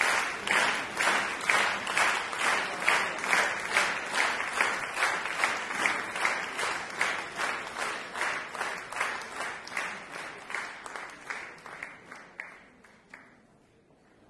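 Concert audience applauding in unison, a steady rhythmic beat of a little over two claps a second that fades gradually and dies away near the end.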